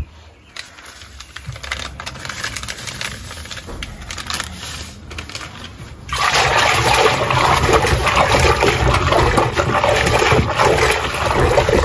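Water sloshing and gushing in a top-loading washing machine tub while detergent powder is stirred in by hand. The sound jumps suddenly much louder about six seconds in and stays there as a steady rush.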